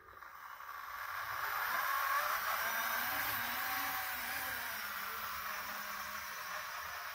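00 gauge model trams running on the track, a steady whir of small electric motors and wheels rolling on the rails, swelling over the first two seconds and then easing slightly.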